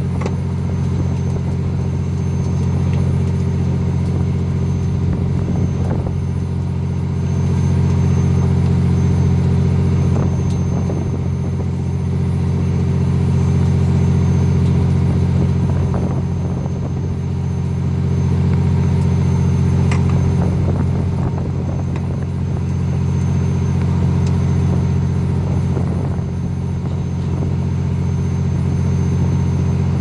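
Fishing boat's engine running steadily: a loud, low drone that swells a little every few seconds.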